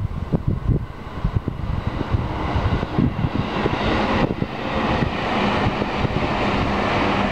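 Wind buffeting the microphone in uneven gusts. From about four seconds in, a distant engine's steady drone grows louder and holds.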